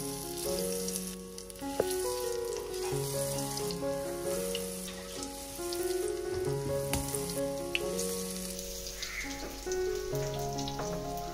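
Oil sizzling and crackling steadily in a frying pan, under background piano music with a steady melody and chords.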